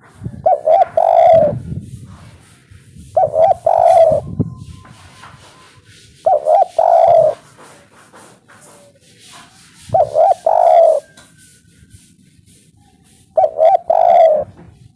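Spotted dove giving its three-part 'kuk 3' coo five times, about every three seconds: two short quick notes, then a longer held note.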